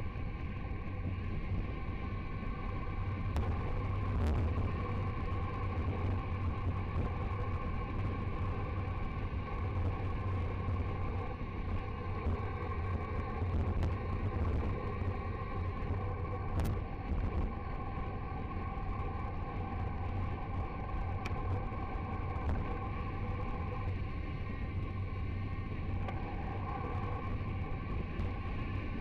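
Steady rush of wind and tyre rumble from a bike descending an asphalt mountain road at about 50 to 70 km/h, picked up by the action camera's microphone, with a few sharp clicks.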